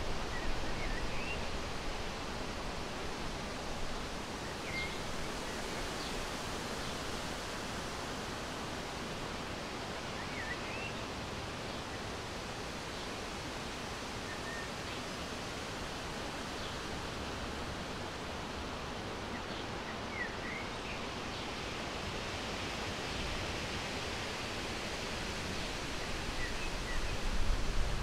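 Steady outdoor background hiss with faint, short bird chirps every few seconds, and a low rumble building near the end.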